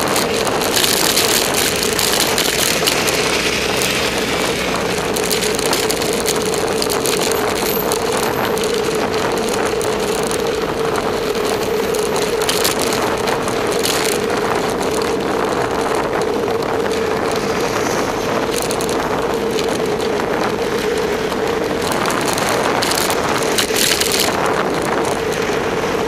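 Wind and road noise from a camera on a moving bicycle in traffic, with a steady mid-pitched hum and scattered short knocks and rattles.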